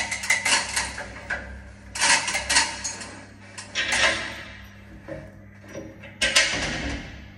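Metallic clattering and knocking in four short bursts, from hands working on metal fittings overhead.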